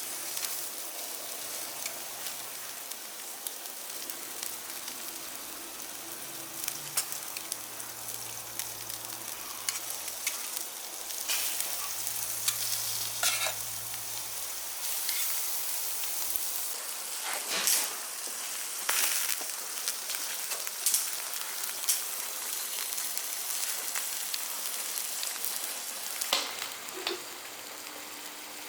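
Meat sizzling on a small stainless-steel barbecue grill: a steady hiss broken by a few sharp clicks and pops.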